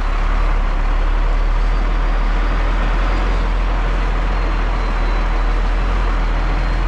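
Loaded Scania truck's diesel engine and tyres, heard inside the closed cab as a steady low drone with road noise.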